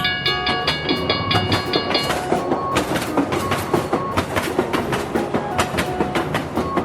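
Train rolling over rail joints with a rapid clickety-clack of wheels. For the first two seconds a chord of held tones sounds over it, then stops abruptly.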